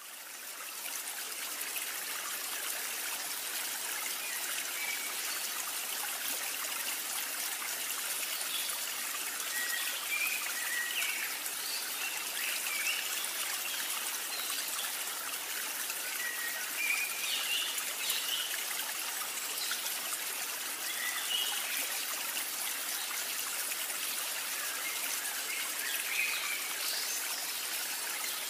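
Steady rushing of a flowing stream, an even water ambience laid over the picture, with now and then a short faint high chirp.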